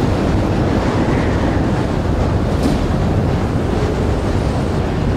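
Tornado wind: a loud, steady rushing roar with a deep rumble underneath.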